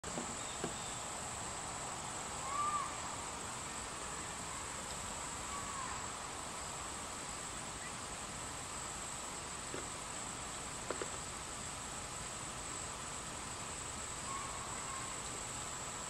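Steady high-pitched insect trilling in summer outdoor ambience. A short bird chirp comes about two and a half seconds in, with fainter chirps later and a couple of faint clicks around ten to eleven seconds.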